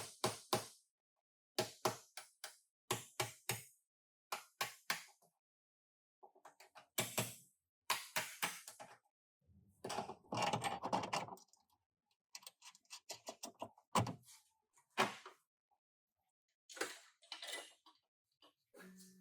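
Hammer blows on a car's sheet-metal body, struck in quick bursts of several sharp knocks with short pauses between them. A longer rough scraping sound comes about ten seconds in.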